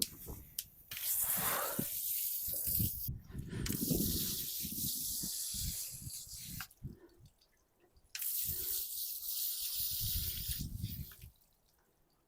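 Water splashing over an ATV tyre in three spells of a few seconds each, with low knocks and rubbing from the tyre being handled and wiped, while it is checked for escaping air from a slow puncture.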